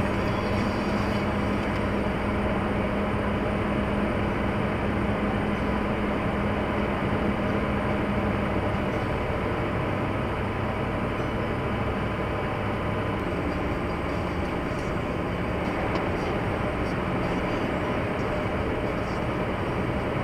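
Steady engine and road noise heard inside a car on the move, with a low engine drone that shifts pitch about nine and thirteen seconds in.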